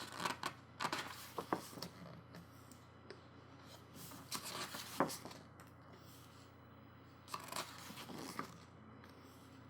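Pages of a photobook being turned by hand, crisp paper rustles and flips in three bursts: at the start, about four seconds in, and near the end.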